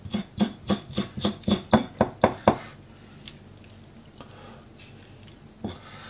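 Kitchen knife chopping through small hatahata (sandfish) on a plastic cutting board, cutting off their heads: about a dozen quick strokes over the first two and a half seconds. After that there is only quiet handling, with a single click.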